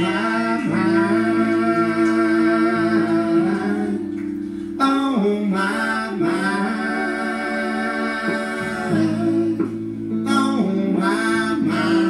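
Live song: a voice singing long held notes over guitar accompaniment.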